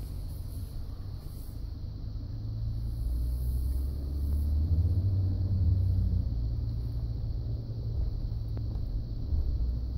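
Low grinding rumble from a Ford F-150 as the steering is turned, growing louder about halfway through and then easing. This is the grinding noise on steering that the owner reports, worse when the truck is cold, which the dealer could not replicate.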